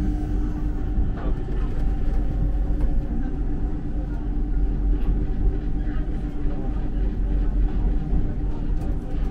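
Düsseldorf Airport SkyTrain, a suspended monorail, running: a steady low rumble with a constant hum.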